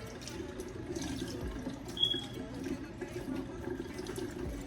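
Kitchen tap running steadily into a sink as vegetables are washed under it, with a short high ring about two seconds in.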